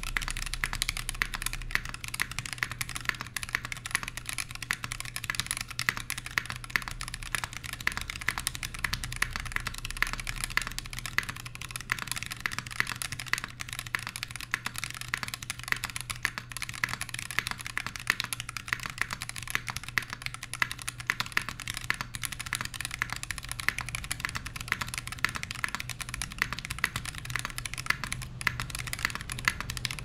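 Continuous fast typing on a TX60 v1 60% mechanical keyboard: lubed Zealios v1 67g tactile switches on a sandwich-mounted brass plate, with GMK keycaps clacking in a dense, unbroken run of keystrokes.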